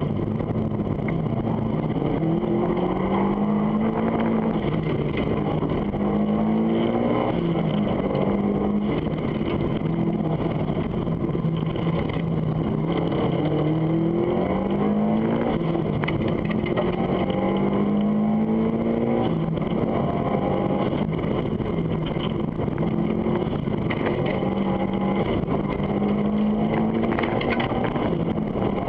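Subaru rally car's flat-four engine heard from inside the cabin on a hard hillclimb run, revs climbing under full acceleration and dropping back at each gear change, several times over, above steady road and drivetrain rumble.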